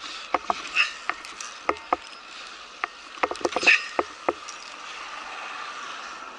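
Ropes-course gear, ropes and hanging tyres knocking and clicking irregularly as a climber hops across the tyre obstacle with both feet, over a steady background hiss. The knocks stop about four and a half seconds in.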